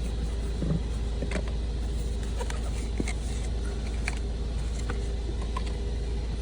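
Audi TTS engine idling steadily, with scattered light plastic clicks as a door puddle light is prised out and its wiring connector unplugged.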